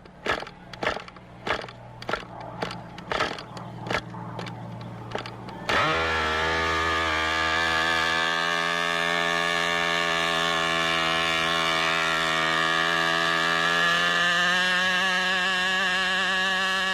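Model airplane engine being started: for about five seconds it gives sharp, uneven pops roughly twice a second as it is turned over. Then it suddenly catches and runs steadily at high speed.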